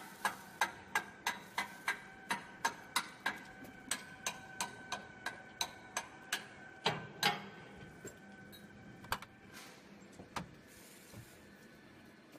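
Sharp, regular mechanical ticking, about three clicks a second, that stops about seven seconds in, followed by a few scattered clicks.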